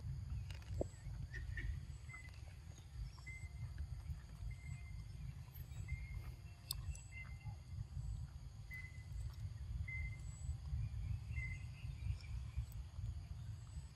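Outdoor ambience: a steady low rumble of wind on the microphone, with a bird repeating a short high note about once every second or so, and a few faint clicks.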